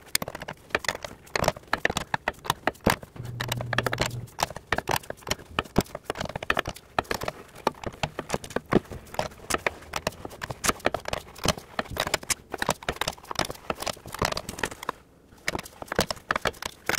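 A 1999 Toyota Solara 3.0L engine being turned over by hand with a breaker bar, working against compression: a dense, irregular run of clicks and knocks, with a short pause near the end.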